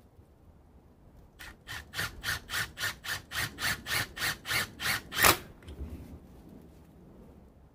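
Milwaukee M18 impact driver hammering on a lag bolt in a steady run of separate strikes, about four a second, lasting about four seconds and ending with one louder strike.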